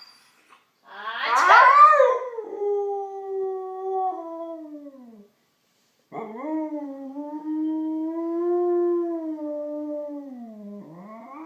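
Siberian husky howling twice in long drawn-out howls. The first starts about a second in, rises, holds steady and slides down. The second starts about six seconds in, holds, dips and rises again at the end.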